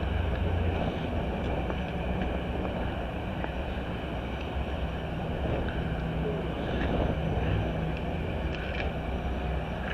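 Demolition derby car engines idling in a steady low rumble.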